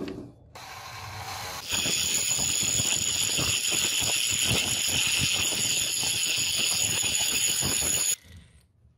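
Angle grinder running at speed with its disc against a brass knife-handle ferrule: a steady high whine over a rough, uneven grinding rasp. It comes in loudly after a quieter second or two and cuts off suddenly near the end.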